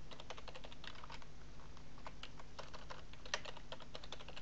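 Typing on a computer keyboard: irregular runs of quick key clicks as code is entered.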